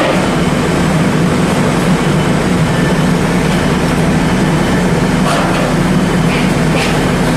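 Engine of a three-axle double-decker city bus running with a steady low hum as the bus pulls slowly through a turn.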